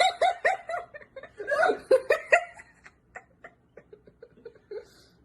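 A person laughing hard: a run of loud bursts of laughter, then quieter short chuckles that trail off.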